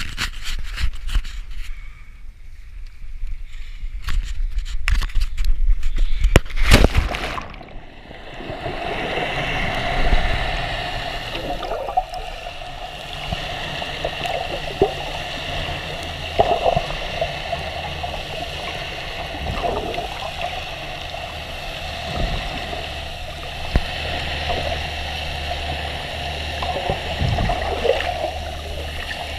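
Wind and water buffeting a camera at the sea surface, then a splash about seven seconds in as it goes under. After that comes the muffled underwater sound through the submerged camera: a steady hum with faint clicks and gurgles.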